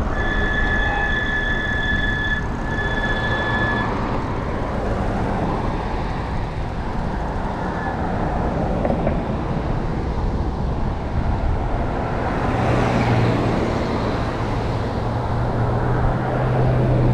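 Wind rushing over a foam-covered GoPro Hero 8 microphone on a moving Super73 e-bike, with road and traffic noise. A steady high tone sounds during the first few seconds, and a low steady hum comes in about twelve seconds in.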